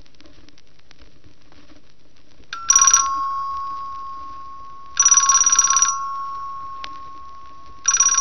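Telephone ringing: three rings about two and a half seconds apart, each under a second long.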